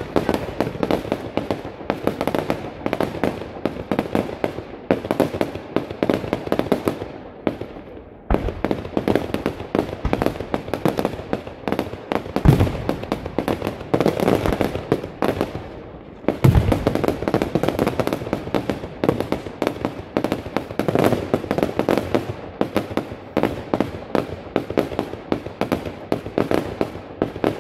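Fireworks display: a dense barrage of rapid bangs and crackles, with two heavier deep booms a few seconds apart in the middle and a couple of brief lulls.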